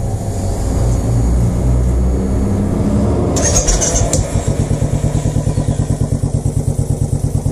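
A 2017 Royal Enfield Classic 500's single-cylinder engine cranked by its starter, catching a little over three seconds in and settling almost at once into a fast idle with a quick, even beat. Induction noise from its pod air filters is part of the sound.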